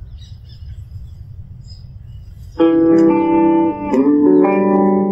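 A quiet stretch with a low hum, then about halfway through a guitar melody starts suddenly, its notes shifting every half second or so.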